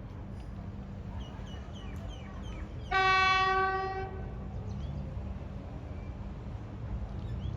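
A train horn sounds once about three seconds in, a single steady tone lasting about a second, over a steady low rumble. Birds chirp briefly before the horn.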